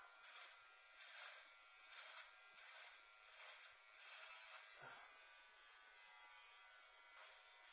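Small electric trimmer buzzing faintly as it cuts through a moustache, swelling in short strokes about once a second. There is a soft bump about five seconds in.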